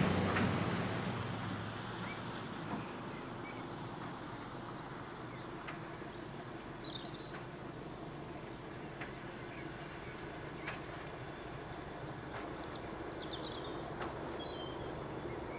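A diesel train's sound dying away over the first couple of seconds, then a quiet outdoor background with a faint steady hum and a few short bird chirps.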